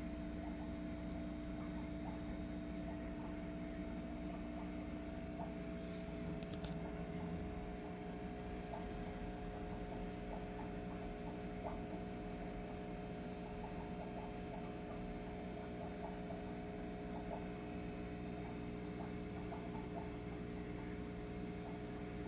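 Aquarium pump running with a steady hum of several held tones over a soft even hiss, with faint scattered ticks.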